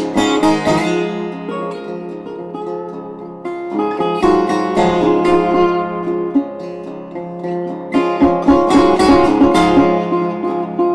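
Background music: a plucked and strummed acoustic guitar piece, with denser strummed passages about four seconds in and again around eight to nine seconds.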